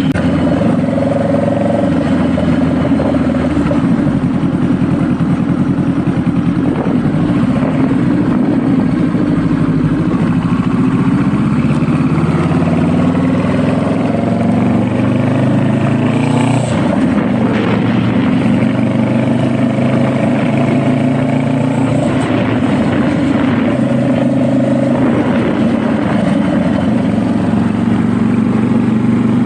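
Honda Rebel motorcycle engine running under way, its note rising and falling several times with throttle and gear changes, with wind rush over the microphone.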